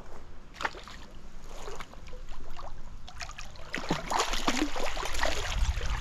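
Water splashing and irregular handling noises as a freshly netted brown trout is worked free of the hook, getting busier and louder from about two seconds in.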